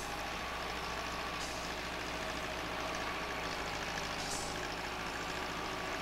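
Heavy diesel engines of an asphalt paver and a dump truck running steadily while the truck tips hot asphalt mix into the paver's hopper, with two brief faint hisses, one about a second and a half in and one past four seconds.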